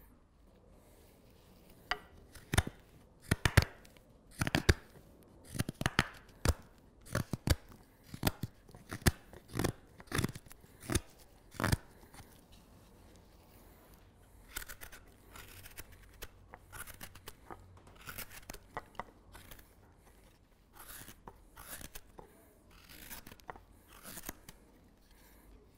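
Hook knife cutting green alder to hollow a spoon bowl: a run of crisp, separate slicing cuts, about one or two a second, then from about halfway softer, quieter shaving strokes.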